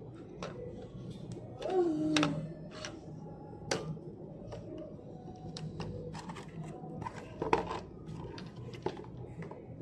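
Handling noise of a plastic handheld mini sewing machine and its box: scattered clicks and knocks as it is picked up, set down on a desk and the packaging is handled. There is a short sliding tone about two seconds in, and a louder knock past the middle.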